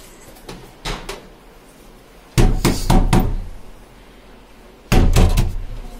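A hand knocking on a wooden door: a couple of light taps about a second in, then two bouts of several quick, hard knocks, the second about two seconds after the first.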